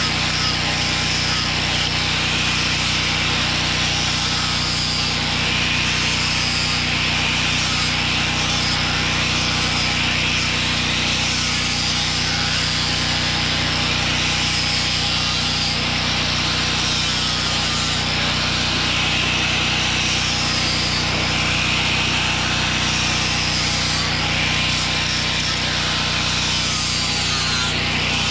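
Corded angle grinder with a sanding disc running steadily, the disc rasping against chainsaw-carved wood for a rough sanding.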